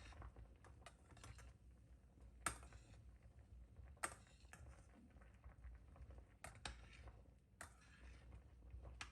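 Faint, irregular clicks and light taps of small objects being handled, a few followed by a brief rustle or scrape.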